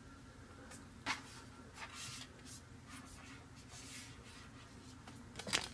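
Trading cards being handled and slid into plastic card sleeves: a few short, faint rustles and clicks, the sharpest about a second in and a couple near the end.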